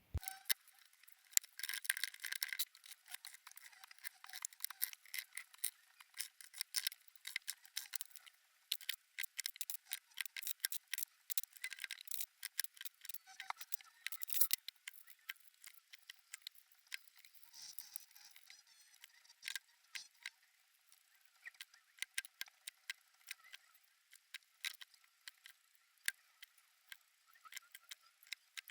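Faint, irregular small clicks and rattles of a mechanical keyboard's plastic parts being handled and fitted back together during reassembly.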